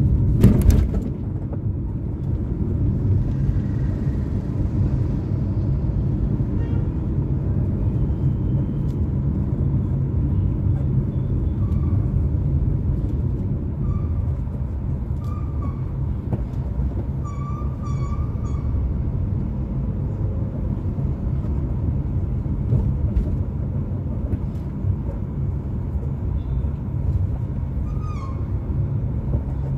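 Steady rumble of a car's engine and tyres heard from inside the cabin while driving. A couple of sharp knocks come right at the start, and a few faint, short high-pitched beeps sound now and then in the middle.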